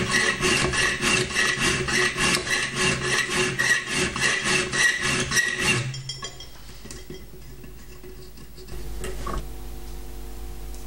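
Hand file rasping across a metal disc held between filing guides in a vise, shaping it into a screw head: quick, even back-and-forth strokes that stop a little past halfway, leaving a low steady hum.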